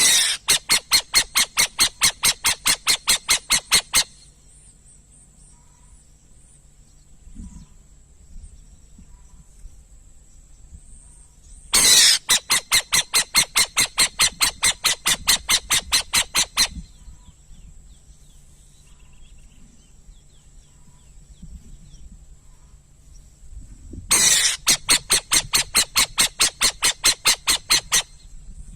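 Burrowing owl calling: a rapid series of harsh, clicky notes, about five a second, in three bouts of four to five seconds each, spaced about twelve seconds apart. A faint steady high-pitched whine lies underneath.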